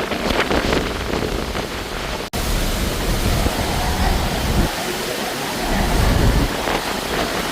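Heavy hurricane rain and wind: a steady rushing hiss of downpour, with gusts buffeting the microphone as low rumbles twice in the second half. The sound cuts out for an instant a little over two seconds in.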